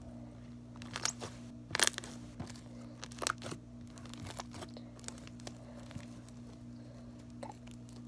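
Sticky homemade glue slime being squeezed and pulled in the hands, giving irregular clicks and pops, loudest about two seconds in, over a steady low hum.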